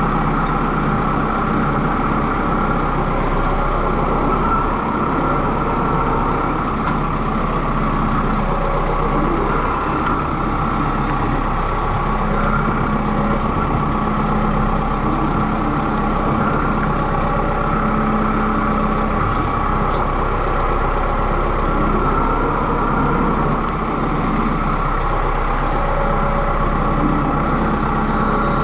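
Kubota M6060 tractor's four-cylinder diesel engine running steadily as the tractor drives and turns.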